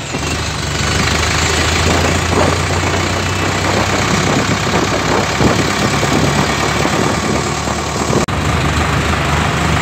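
Diesel tractor engine running steadily while the tractor drives along the road, heard from the driver's seat beside its vertical exhaust stack. The sound briefly cuts out a little past eight seconds.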